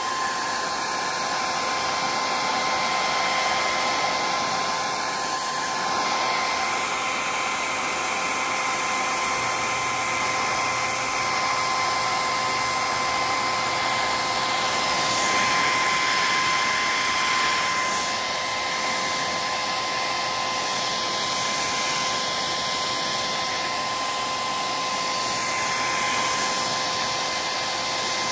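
Heat gun blowing steadily while heating a decal, a continuous rush of air with a steady fan-motor whine.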